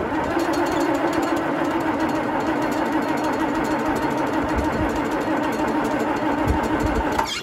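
1972 John Deere 4320's six-cylinder turbo diesel running steadily with a freshly rebuilt injection pump fitted. The sound starts suddenly and cuts off abruptly near the end.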